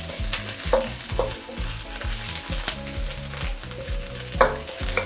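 Chopped broccoli sizzling in hot oil in a non-stick frying pan, stirred with a wooden spatula that knocks and scrapes against the pan several times.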